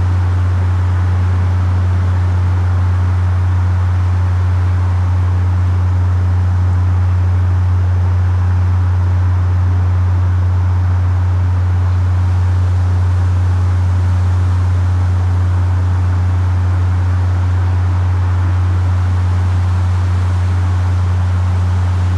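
A steady low-pitched hum with a fainter overtone above it, over an even hiss. It is an unexplained low-frequency hum, which the recordist likens to the Windsor Hum.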